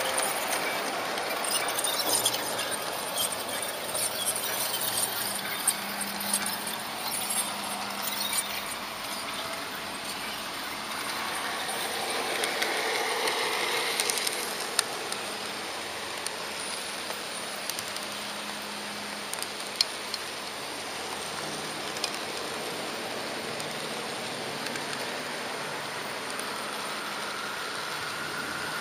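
Märklin HO-scale model train running along its track: a steady rolling rattle with many sharp clicks, busier in the first half.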